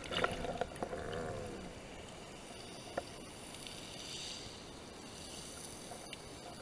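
Underwater ambience picked up through a camera housing: faint irregular gurgling and clicks in the first second and a half, then a steady low hiss with a few isolated clicks.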